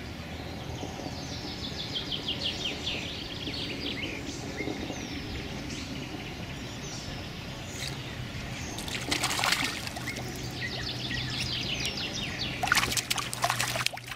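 Songbirds singing, with water splashing twice, around the middle and again near the end, louder than the birdsong, as a hooked crucian carp thrashes at the surface.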